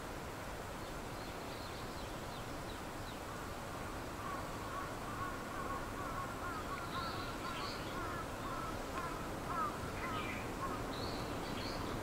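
Outdoor rural ambience: birds calling now and then over a steady background hiss, with a rapid chattering call joining about four seconds in.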